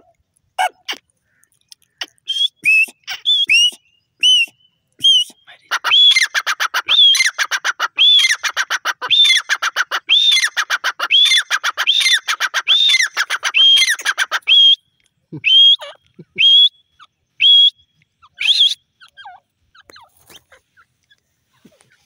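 Grey francolin calling: sharp whistled notes that build into a fast, loud run of repeated calls lasting about eight seconds, then thin out to single notes and stop a few seconds before the end.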